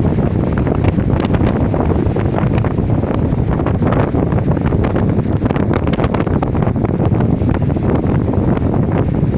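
Wind buffeting the microphone in gusts, over the steady wash of sea waves.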